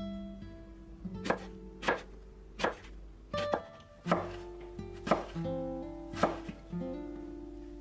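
Kitchen knife chopping through stacked eggplant slices onto a wooden cutting board: about seven sharp cuts, roughly one a second.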